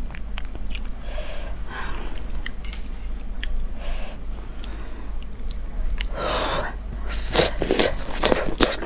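Close-miked eating sounds: chopsticks clicking lightly in a hotpot, then a louder run of biting, slurping and chewing of hot food in the last second and a half.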